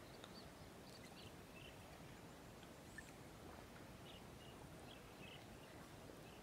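Near silence: faint outdoor background with a scattering of short, faint high chirps and one tiny click about three seconds in.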